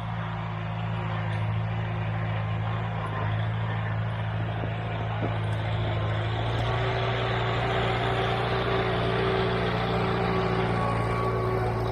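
1949 Farmall Cub tractor's four-cylinder flathead engine running steadily as it drags a log through snow, growing a little louder as the tractor draws near.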